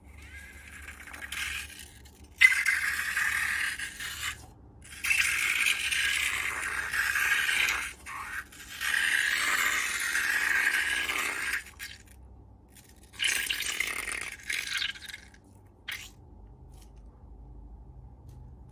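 Scraping and rattling in four stretches of one to three seconds each, with quiet gaps between them.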